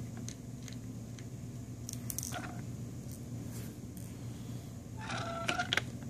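Faint clicks and scrapes of a small Phillips screwdriver turning out the tiny screws of an LG G3's plastic back frame, over a steady low hum. A brief pitched squeak about five seconds in is the loudest moment.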